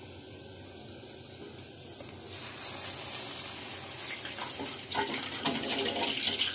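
Cardamom sugar syrup bubbling and sizzling in a wide pan around freshly fried gulab jamun. A soft steady hiss grows louder about two seconds in and turns to a busier crackling sizzle in the second half.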